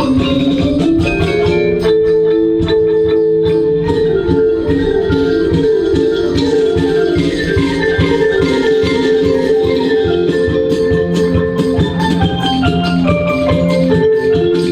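Percussion ensemble playing a lively dance piece: quick runs of short notes on marimba and xylophone over a steady drum beat.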